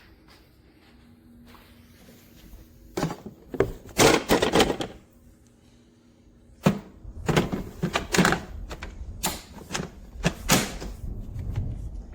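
Irregular clunks, knocks and clicks of hard parts being handled, with a cluster of loud knocks about four seconds in and another run of them through the second half.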